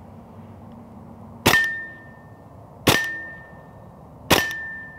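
Hatsan Blitz .30 caliber PCP air rifle fired three times on semi-auto, a shot about every second and a half, each followed by a short high ring as the pellet strikes a steel target.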